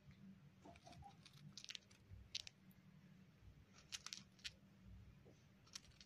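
Cockatiel grinding its beak: faint, scattered clusters of dry clicks and crunches, the sound a relaxed, drowsy cockatiel makes.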